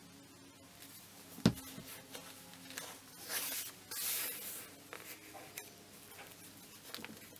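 Quiet handling of paper: a single light knock, then soft rustling and rubbing as small paper pieces are glued and pressed onto a journal page.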